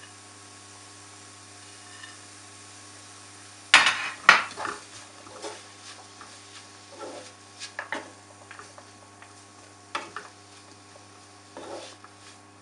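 Wooden spoon stirring a paneer and vegetable stuffing in a non-stick frying pan. Two sharp knocks about four seconds in are followed by scattered scrapes and taps of the spoon on the pan, over a faint steady hum.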